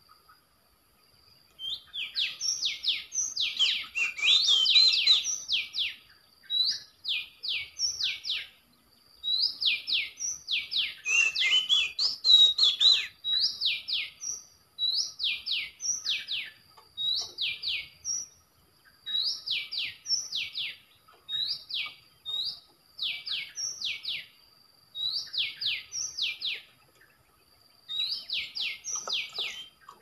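Oriental magpie-robin calls played from an MP3 lure: a short phrase of three or four quick, sharp downward-sweeping whistles, repeated every second or two at a very even pace. Twice, a denser tangle of calls overlaps the phrase.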